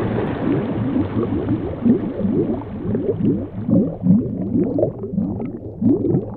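Bubbling, gurgling sound effect: a quick run of short wobbling blips over a low steady hum.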